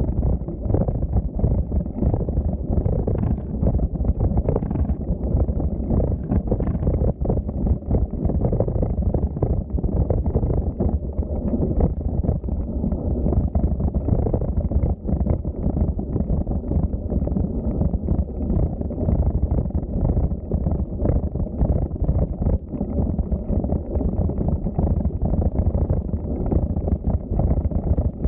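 Steady, loud wind buffeting and rumble on the microphone of a camera riding along on a moving bicycle.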